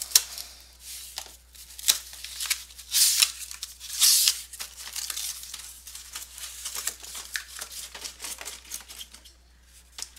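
Sports card boxes and their packaging being handled and set out on a table: irregular rustling, scraping and light knocks, loudest about three and four seconds in.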